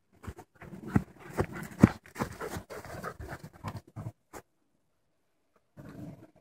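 Two dogs play-fighting, with growls and scuffling in short irregular bursts for about four seconds, broken by two sharp knocks. It goes quiet, then a short rustle comes near the end.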